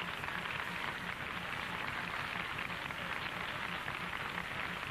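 Studio audience applauding, with laughter mixed in: a steady, dense patter of many hands clapping.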